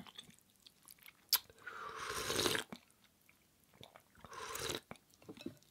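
A person slurping ramen broth and noodles from the rim of a bowl: two slurps of about a second each, with a single sharp click a little before the first.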